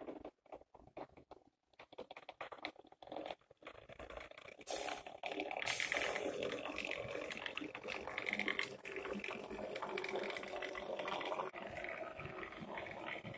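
Kleinbahn ÖBB 1042 model electric locomotive, driven by two Kleinbahn disc-commutator motors, running on model track. At first there is a scatter of sharp clicks and crackles. From about five seconds in it becomes a louder, steady whirring running noise.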